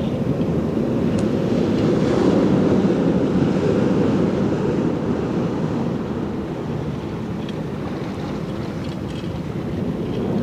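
Low, muffled rushing of tidepool water surging around the rocks, heard through an underwater camera's housing, with a few faint clicks.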